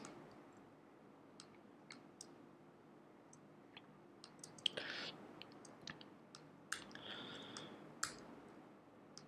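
Faint, scattered clicks of computer keyboard keys, a few at a time with gaps between.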